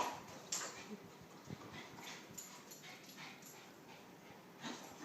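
West Highland white terrier whimpering and yipping, with a couple of sharp clicks in the first second.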